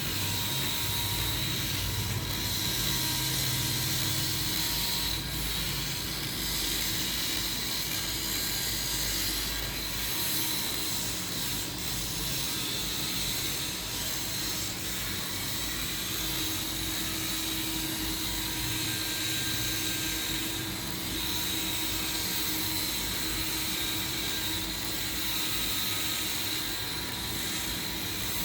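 Steady machine hum with a constant high whine and a fainter mid-pitched tone; a low rumble underneath drops away about ten seconds in.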